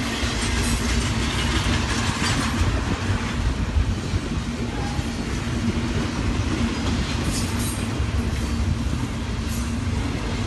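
Double-stack intermodal freight train rolling steadily past, its wheels rumbling and clacking over the track.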